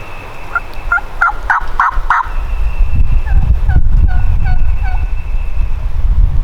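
Eastern wild turkey gobbler gobbling: a quick rattling burst of about six notes, then a softer run of short notes. Low wind rumble on the microphone builds up in the second half.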